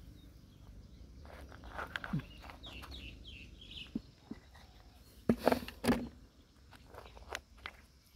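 Irregular knocks and clicks, the loudest a pair of thuds about five and a half and six seconds in, with a short run of four quick falling chirps around three seconds in.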